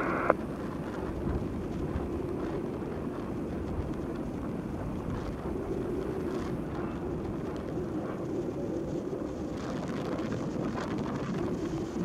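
Jet engines of an Airbus A321neo airliner heard as a steady rumble while it lands and rolls out down the runway, mixed with wind on the microphone.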